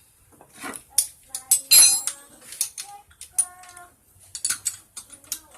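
Metal tools and engine parts clinking and knocking together, in a quick irregular series of sharp clicks, as a small motorcycle engine is taken apart by hand.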